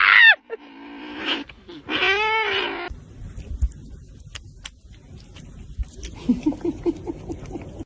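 A cat meowing, with one long meow that wavers in pitch about two seconds in. Then come a few clicks and light knocks, and near the end a quick run of short chirps.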